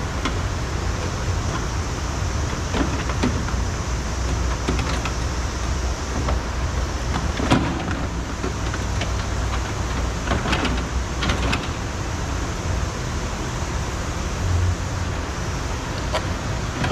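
Scattered clicks and knocks of plastic door trim being pried with a flathead screwdriver, the sharpest about seven and a half seconds in, over a steady low rumble.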